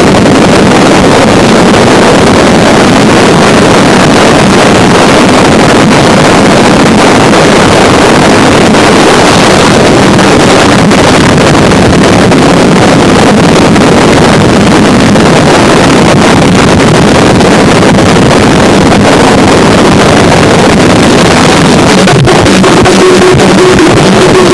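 Harsh noise music: a dense, constant wall of distorted noise across all pitches, played at full loudness without a break. Near the end a steady low tone comes in under the noise.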